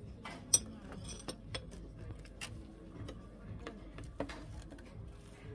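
Cutlery clinking against plates at a dining table: a series of light, sharp clinks, the loudest about half a second in.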